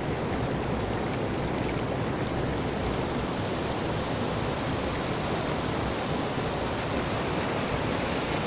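Muddy river water rushing over and spilling off the edge of a low concrete bridge: a steady, unbroken rushing of flowing and cascading water.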